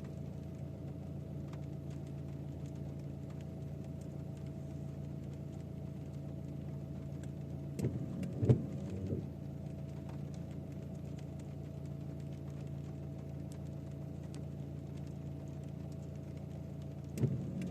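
Idling engine running steadily, with a brief clatter of knocks about eight and a half seconds in.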